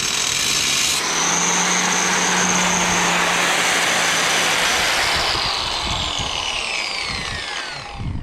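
Angle grinder cutting into a rusted bolt, its steady whine shifting in pitch about a second in. About five seconds in it is switched off and winds down with a falling whine, stopping near the end.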